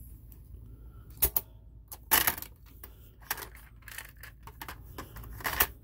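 Sharp plastic clicks and clacks from the keys and cassette door of a Realistic CTR-48 portable cassette recorder as a tape cassette is fitted into it, the loudest about two seconds in.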